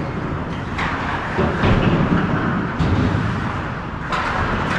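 Hockey rink game noise: a steady rumble with three sharp knocks, about a second in, near the middle and near the end.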